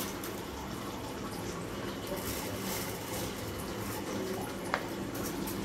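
Red lentils being washed by hand in water inside a pressure cooker pot: water sloshing and swishing, over a steady low hum. There is one sharp click about three-quarters of the way through.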